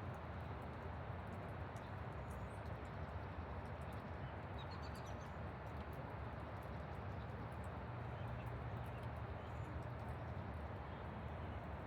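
Steady rain falling, an even hiss with scattered light drip ticks throughout.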